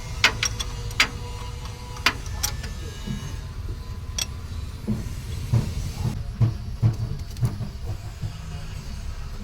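Metal clinks and knocks of hand tools working on a truck's starter motor during fitting, several sharp strikes in the first few seconds and a run of duller thumps later, over a steady low rumble.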